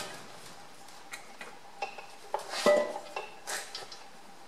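Scattered metal clinks and knocks as a cast-iron tractor final drive housing is worked onto the axle-centre studs. A few have a short ring, and the loudest comes about two and a half seconds in.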